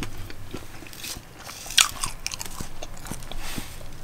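Close-miked chewing and biting of a crisp homemade chicken quesadilla: many small mouth clicks and crackles, with one louder crunch a little under two seconds in.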